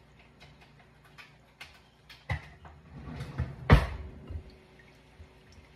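A silicone spatula stirring yeast and sugar into warm water in a glass measuring cup, making scattered light knocks and taps against the glass. One knock a little past halfway is sharper than the rest.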